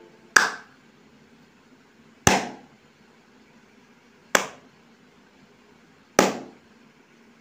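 Four single hand claps, about two seconds apart, each a sharp crack with a short decay, clapped to toggle a clap-switch LED circuit on and off through its microphone sound sensor.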